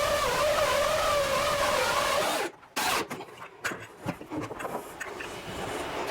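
A small motor runs with a steady whine that wavers slightly in pitch, then cuts off abruptly about two and a half seconds in. Light clicks and knocks follow.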